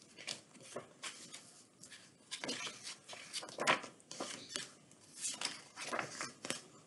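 Pages of a picture book being turned and handled close to the microphone: an irregular run of paper rustles, flicks and light taps, a few of them louder.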